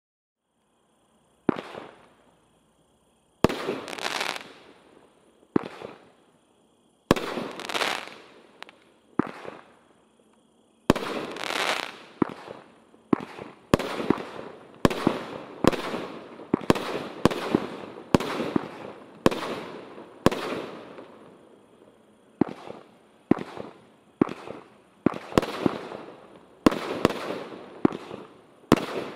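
A 30-shot 500 g consumer fireworks cake (Brothers 'Boom') firing a string of aerial shells: sharp bangs, each trailing off. The first comes about a second and a half in and the next few about two seconds apart, then from about eleven seconds on they come faster, one or two a second.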